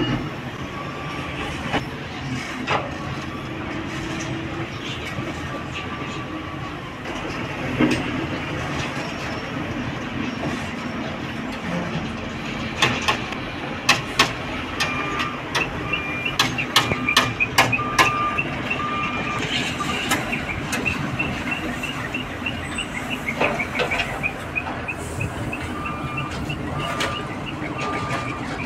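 A heavy truck leaving the steel platform of a hydraulic truck tippler: a steady mechanical drone under a cluster of sharp metal clanks and knocks about halfway through. Through the second half the truck's reversing beeper sounds in repeated beeps.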